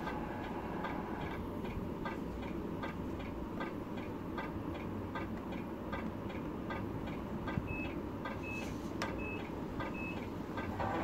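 RC truck sound unit playing a simulated diesel idle: a steady low rumble with a regular tick about three times a second. Four short high beeps come near the end.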